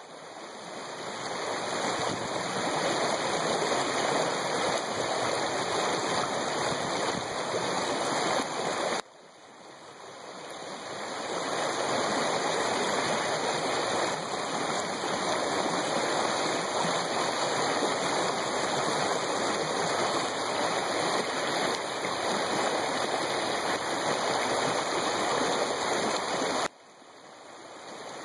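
Small stream rushing and rippling over a shallow riffle, a steady hiss of running water. Twice, about nine seconds in and near the end, the sound drops off suddenly and swells back up over a couple of seconds.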